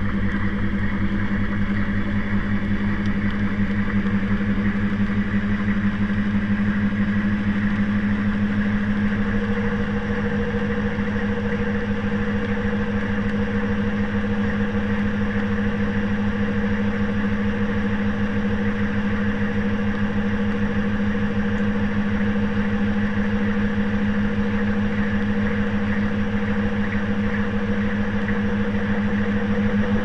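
Washing machine running with its drum turning, heard from inside the drum: a steady motor hum over a fast, even rumble, with a second, higher hum coming in about eight seconds in.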